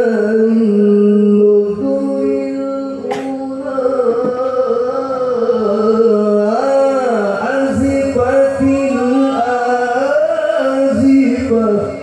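A man reciting the Quran in melodic tilawah style, drawing out long held notes with ornamented bends in pitch.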